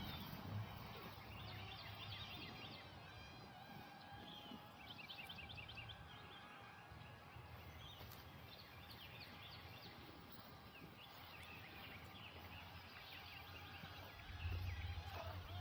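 Faint outdoor ambience with birds chirping, short quick calls repeating over a low, steady background hiss.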